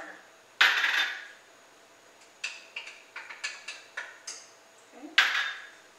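Chopped onions and green bell peppers dropped by hand into a Dutch oven of collard greens: two short rustling bursts, about half a second in and again near the end, with a run of light taps and clicks between.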